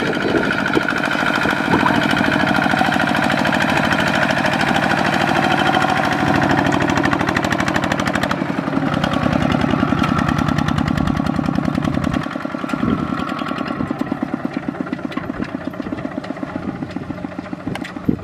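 Kubota ZT155 single-cylinder diesel engine on a two-wheel walking tractor, chugging steadily with fast, even firing pulses while hauling a loaded trailer. It drops somewhat quieter about two-thirds of the way through.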